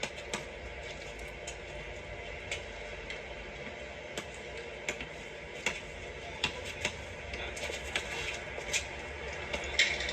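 Scattered, irregular sharp clicks and taps over a steady low background rumble.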